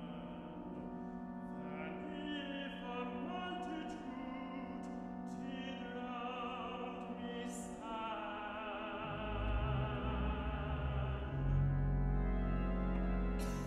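Mixed chapel choir singing a slow sacred piece with church organ accompaniment over a held organ note. About nine seconds in, deep organ bass notes enter beneath the voices and the music grows louder.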